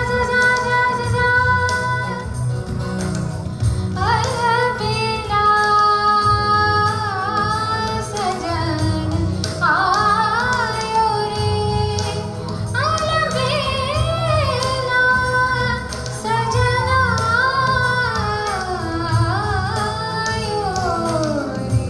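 A young woman singing solo into a microphone, a slow song of long held notes that slide and bend in pitch, ending on a long falling phrase.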